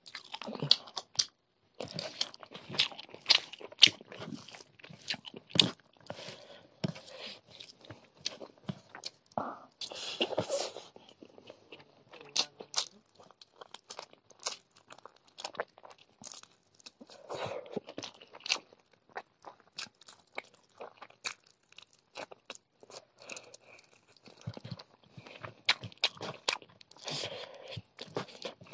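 Close-miked mukbang eating of rice and chicken curry by hand: steady chewing with many sharp, wet mouth clicks and crunchy bites, irregular throughout.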